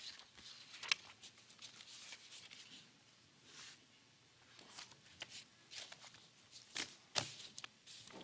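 Faint rustling and shuffling with a few short, sharp clicks and knocks: people moving about and paper being handled, as the room gets to its feet.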